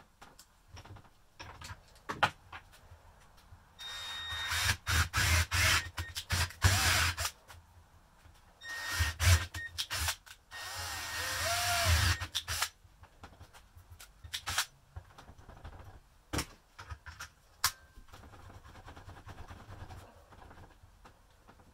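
Cordless drill boring into the chisel's socket beside a jammed piece of rebar, in two runs of a few seconds each, about four seconds in and again about nine seconds in. Scattered clicks and knocks of locking pliers and metal handled on a workbench come before and after.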